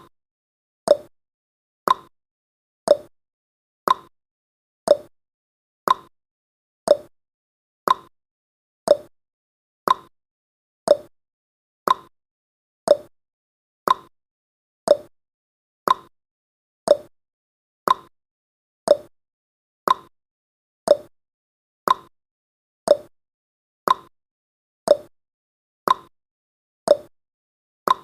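Countdown timer sound effect: a short, sharp tick once every second, each fading quickly, in an even, unbroken rhythm.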